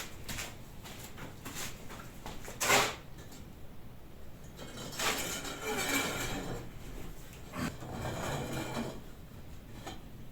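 Bricklaying by hand: a single sharp knock of brick about three seconds in, then two stretches of gritty scraping as mortared bricks are slid and set onto threaded rods.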